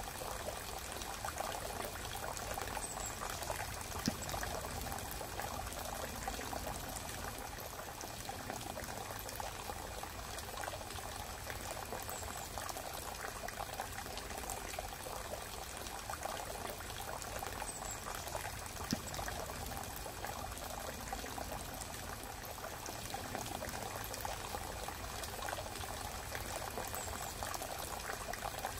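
Steady water-like noise, like pouring or bubbling water, with two brief clicks about fifteen seconds apart.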